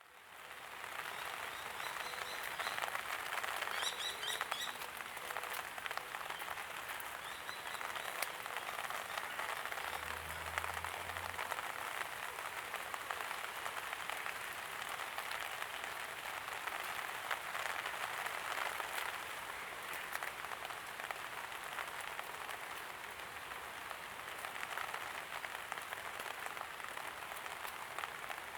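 Steady light rain falling, fading in at the start, with a few short bird chirps a few seconds in.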